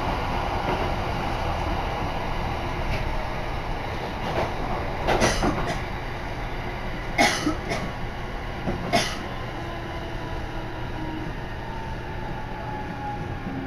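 Running noise of a Shinetsu Line train heard from inside the carriage: a steady rumble, with a few sharp noises in the middle and a faint tone slowly falling in pitch during the second half.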